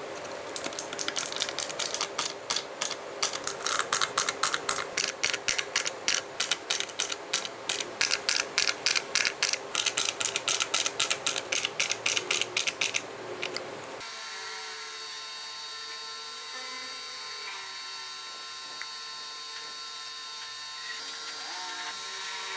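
Rapid ratcheting clicks of a hand screwdriver driving small screws into wood, about four to five clicks a second with brief pauses. The clicks stop about 14 seconds in and give way to a steady hum.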